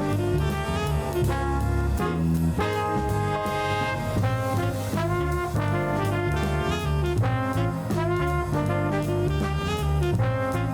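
Background music: upbeat jazz with a brass section over a steady bass line and drums.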